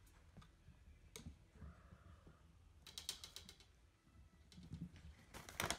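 Faint, scattered light clicks and taps from a kitten playing with a feather wand toy, with a quick run of clicks about three seconds in and a sharper click near the end.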